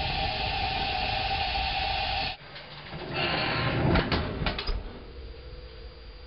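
Gas oven broiler burner running with a steady hiss and hum, which cuts off suddenly about two seconds in. Then a foil-lined tray of roasted chile peppers being drawn out of the oven, with a few sharp metallic clicks and rattles against the rack.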